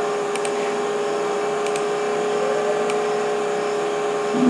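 Steady mechanical hum with several fixed tones, with a few faint short clicks over it.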